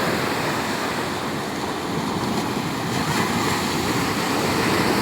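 Steady rushing noise of wind buffeting the microphone over water, with no distinct events.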